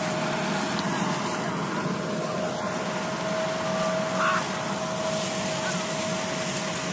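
Combine harvester running steadily while cutting wheat: a constant engine hum with a steady whine over it.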